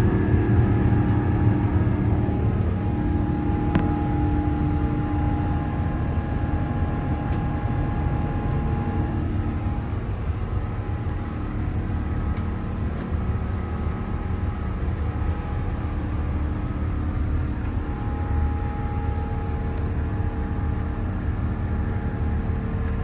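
Airbus A350-900's Rolls-Royce Trent XWB jet engines running at takeoff/climb power: a steady rumble with a steady whine on top, easing slightly.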